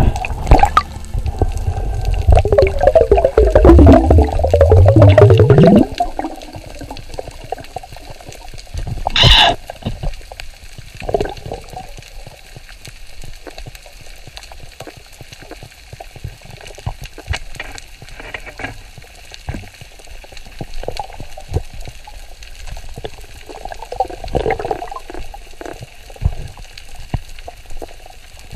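Underwater sound picked up by an action camera. For the first six seconds there is a loud, low rush of water with bubbling and gurgling as the diver moves, then it drops to a quiet underwater hiss with scattered faint clicks. There is one sharp knock about nine seconds in.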